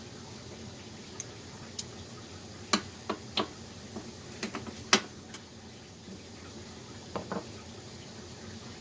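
Hand tools and metal engine parts clinking and knocking, a dozen or so short sharp taps at irregular intervals, the loudest about five seconds in.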